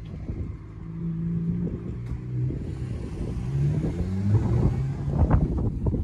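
A motor vehicle's engine accelerating, its note climbing in stages as it shifts up through the gears. Wind buffets the microphone near the end.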